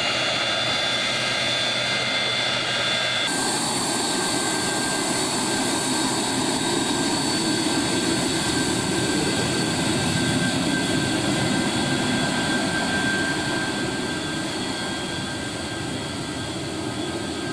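Boeing 737-200's Pratt & Whitney JT8D turbofan engines running, a steady jet noise with high whining tones. The sound changes abruptly about three seconds in, becoming hissier.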